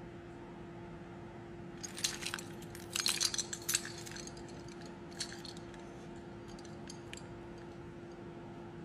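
Metal keys and keyring clinking and jingling in a run of light clicks as a small keychain gadget is unhooked from the bunch, with a few more clicks later; a faint steady hum underneath.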